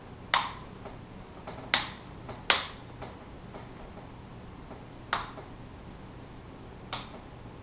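Plastic clips of a Dell Inspiron 15R 5537 laptop's screen bezel snapping into place as fingers press along its edge: sharp snaps, three in the first few seconds and two more spread further apart, the sign of the bezel seating back onto the lid.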